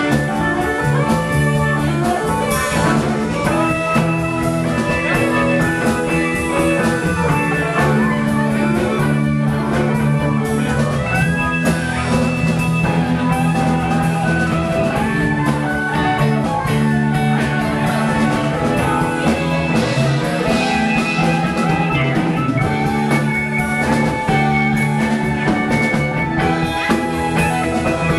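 Live rock band playing an instrumental jam: fiddle, electric guitars, keyboard, bass and drum kit together, with no singing.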